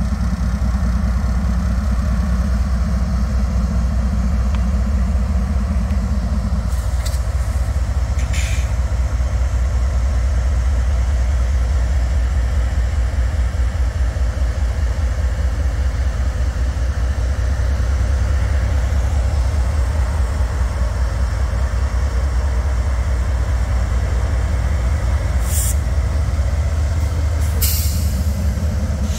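ATV (quad) engine running steadily, with a few short sharp clicks over it.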